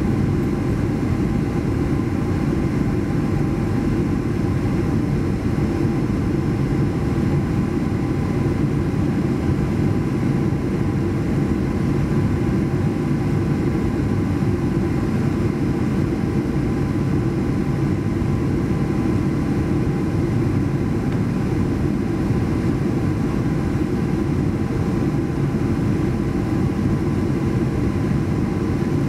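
Steady cabin noise inside a Boeing 737-800 airliner: a deep, even rumble of airflow and its CFM56 engines, with a few faint steady hums above it, unchanging throughout.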